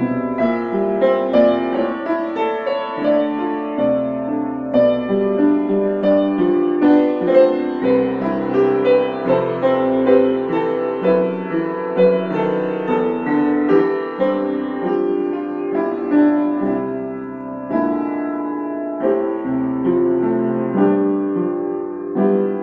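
Solo piano playing a melody over held chords and bass notes, note after note without a break.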